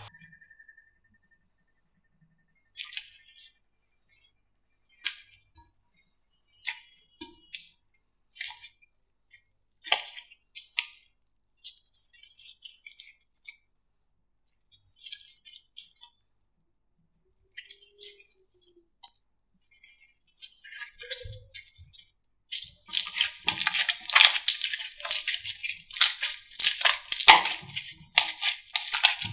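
Slime being squeezed and poked by hand, giving scattered short sticky clicks and crackles. About two-thirds of the way through these thicken into dense, continuous crackling.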